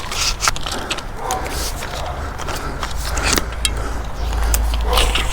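Household electrical cable being pulled out of a scrap pile by hand: irregular scraping, rustling and small knocks and clicks of cable and junk being shifted, over a steady low rumble.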